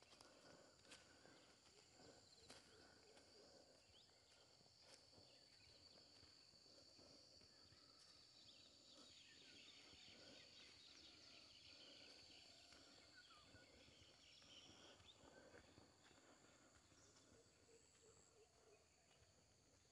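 Near silence: faint outdoor ambience with a thin, steady high-pitched tone and a few soft clicks.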